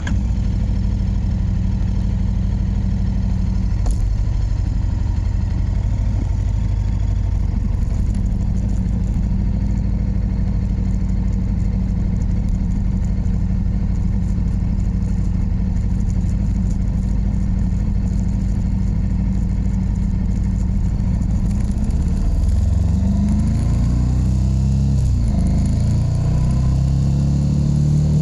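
KTM 1290 Super Duke R's big V-twin engine idling steadily, then, about three-quarters of the way through, its pitch rising and falling repeatedly as it is revved or pulls away. Recorded through a GoPro action camera's microphone.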